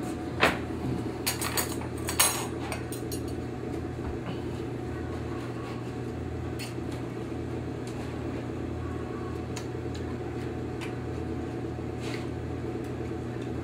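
Knife and fork clinking and scraping against a china plate as a steak is cut: a cluster of clicks in the first couple of seconds, then a few scattered clinks. A steady low kitchen hum runs under it all.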